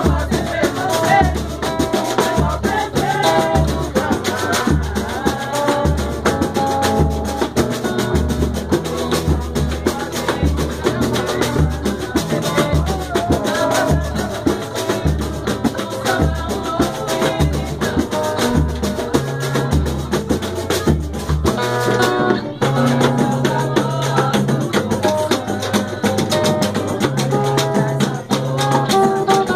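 Batucada: a samba percussion group playing a steady deep drumbeat under a melody. About three-quarters through, the deep drumbeat breaks off and the music carries on over held bass notes.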